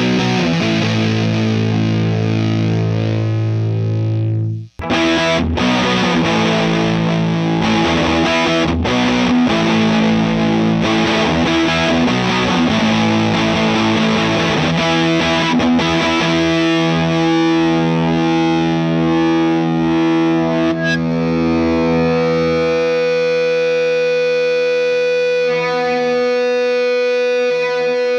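Heavily distorted electric guitar played through a Marshall JMP model 1987 50-watt valve amp with every control on 10, miked off Celestion 12-inch speakers: first a Vintage 30, then a G12T-75, then a G12M-65 Creamback. Chords are strummed, with a brief cut about five seconds in, and the last few seconds are long held, ringing notes.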